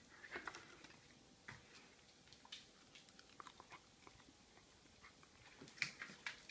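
A dog chewing small treats: faint scattered crunches and clicks, with a louder cluster near the end.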